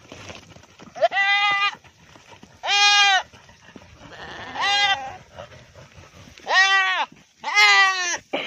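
Goat screaming in pain: five loud bleats over several seconds, each rising then falling in pitch. The cry of a goat whose scrotum is caught and pulled on another goat's horn.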